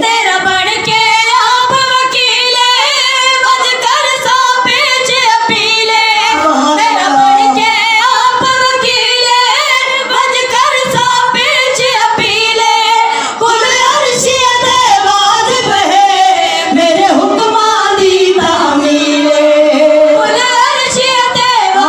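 A woman singing a qaseeda, a Shia devotional poem, in long held notes with wavering ornaments.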